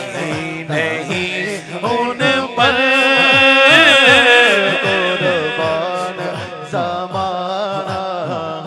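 A male naat reciter singing through a microphone and PA in a long melismatic line, with a long wavering held note in the middle. A steady low drone and a regular low beat run underneath.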